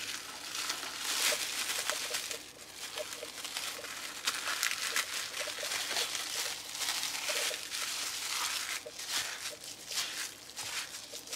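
Plastic cling film crinkling and rustling in irregular crackles as hands wrap it tightly around a log and twist the ends.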